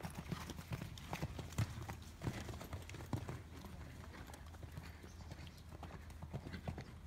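Horse hoofbeats on sand arena footing: a run of irregular dull thuds, one louder strike about a second and a half in.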